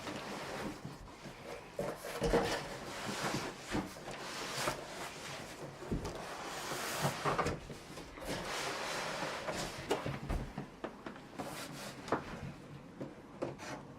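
Cardboard shipping box and packing material being opened and handled: cardboard sliding and scraping, with scattered knocks and rustles.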